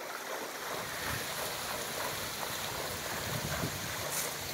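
Water sloshing and splashing around a man wading into a lake, as a steady noisy wash with a few stronger swishes.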